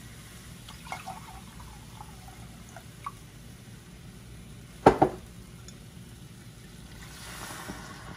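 Chicken broth poured from a glass measuring cup into a stainless steel skillet. A sharp double knock about five seconds in is the loudest sound, with a few small clicks before it.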